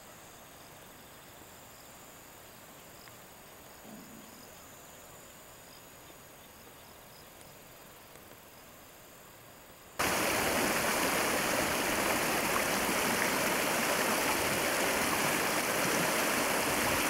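Faint, steady insect trilling for about ten seconds, then a sudden switch to the loud, steady rush of stream water.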